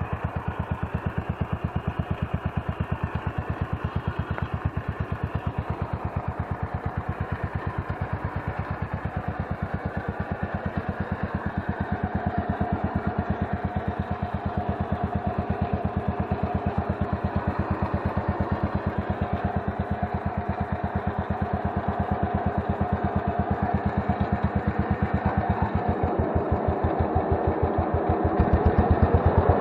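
Engine of a 64-year-old Yazoo 60-inch mower running steadily with an even, rapid firing beat. It grows louder a couple of seconds before the end.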